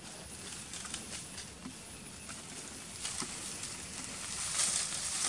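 Outdoor ambience with scattered faint ticks, then leaves and branches rustling, loudest near the end, as a monkey moves through the tree.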